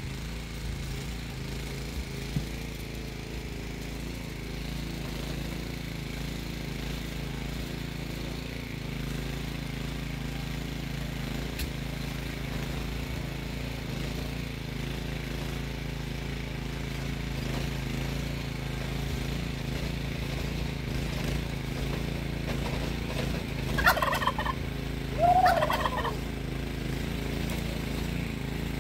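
A rototiller's small engine running steadily, with a chicken giving two loud short calls near the end.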